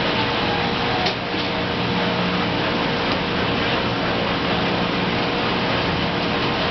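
Steady running noise of a Belco hot log saw line: its motors and fans make a constant rush with a faint hum, and a single sharp click sounds about a second in.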